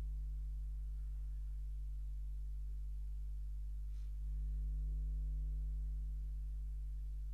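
Steady low electrical hum, a mains-frequency buzz with a few fainter higher tones above it, swelling slightly a little after four seconds in. A faint click about four seconds in.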